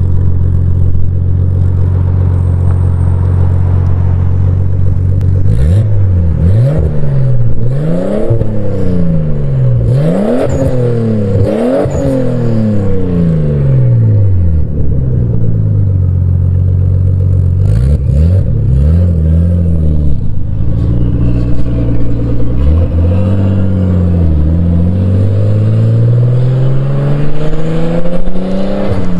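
Nissan Skyline R33 GTS-T's turbocharged RB25 straight-six, breathing through a custom turbo-back exhaust with an HKS Titan muffler. It idles steadily, then gives several quick free-revs about five seconds in, then pulls away and accelerates through the gears, pitch climbing and dropping with each shift.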